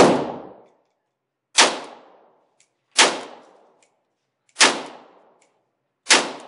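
Hungarian FEG AMD-65 AK rifle in 7.62x39 with a two-piece muzzle brake firing five single shots, about one and a half seconds apart. Each shot rings out briefly in the indoor range.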